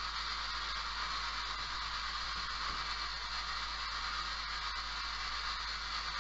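Steady hiss with a low hum underneath, the recording's own noise floor, with a few faint ticks.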